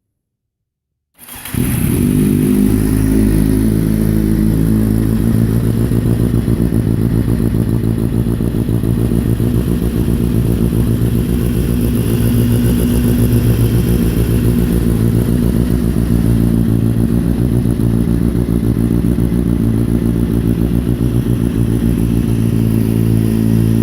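Kawasaki Z750's inline-four engine idling steadily through a carbon Yoshimura-replica slip-on exhaust. The sound cuts in abruptly about a second in and holds a steady, even pitch.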